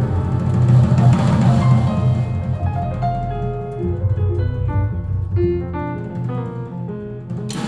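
Recorded music played back through Avalon Acoustics loudspeakers in an exhibition listening room: piano-like keyboard notes over a heavy bass. The bass falls away about two seconds in, leaving single notes, and there is a sharp break near the end.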